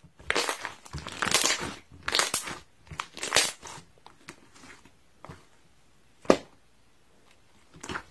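Pink slime being squeezed and pressed by hands, giving crackly, popping squelches in several bursts over the first few seconds, then a single sharp pop a little after six seconds.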